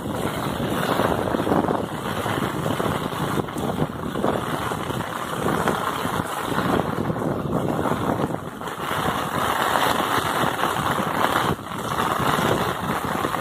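Heavy rain falling on a cobblestone street, a steady, dense hiss of downpour.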